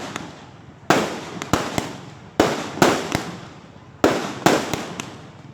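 Fireworks going off: a run of sharp bangs at irregular intervals, sometimes two or three within a second, each trailing off in a long echo.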